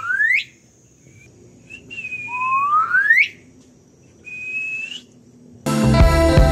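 Pet talking bird whistling: clear whistles that sweep sharply upward alternate with short, steady whistled notes, two of each. Music starts near the end.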